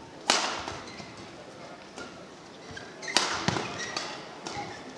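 Badminton rackets striking the shuttlecock in a doubles rally: a sharp, loud hit about a third of a second in and another about three seconds in, each ringing briefly in the hall, with fainter taps between.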